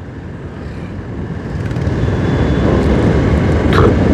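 A Honda Unicorn 163 cc single-cylinder motorcycle engine running as the bike rides along the road, with a steady rumble of engine, wind and tyre noise. It grows louder over the first couple of seconds and then holds steady.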